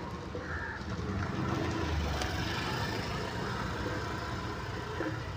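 Street traffic noise: a steady low rumble of motor vehicles.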